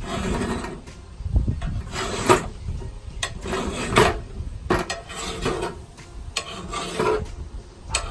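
Hand file stroking along the steel edge of a lawn mower blade, about six rasping strokes roughly one every second and a half, as the blade is sharpened.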